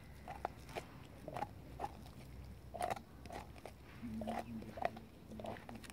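Czechoslovakian wolfdog gnawing a bone, with about a dozen irregular sharp crunches and cracks as its teeth work the bone. A faint steady hum comes in about four seconds in.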